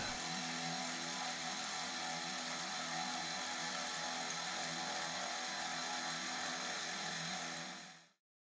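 Small benchtop milling machine running steadily with a whir and several steady tones while an end mill cuts aluminium plate. The sound fades out near the end.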